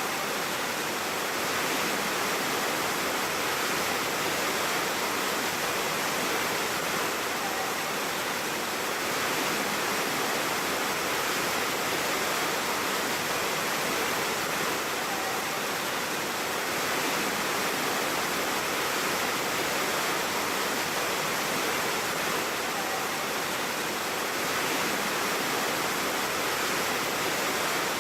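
Waterfall: the steady, even rush of falling water, unbroken throughout.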